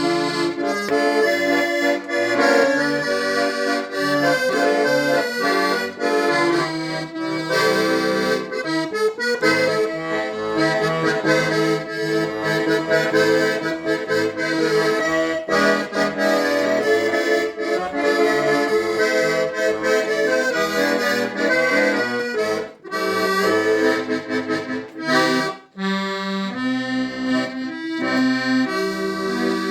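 A 1930 Hohner Organola accordion, unrepaired, being played: a melody over sustained chords and changing bass notes, with two short breaks in the sound a little after two-thirds of the way through.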